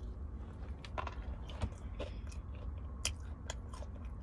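A person chewing and biting into fried chicken strips close to the microphone: scattered crunches and small mouth clicks over a low steady hum.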